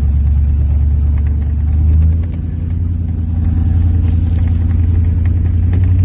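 1993 Ford F-150 engine running with a steady low rumble; a little after two seconds in it dips briefly and shifts in pitch, then holds steady again.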